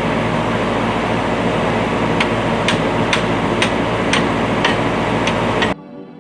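Case 580C backhoe engine running steadily, with a row of sharp ticks about twice a second over the second half; the sound cuts off suddenly near the end.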